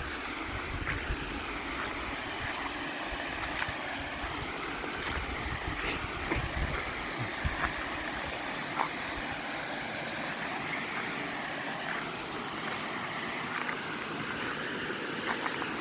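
Waterfall water rushing and splashing in a steady roar, with low wind buffeting on the microphone in the first few seconds.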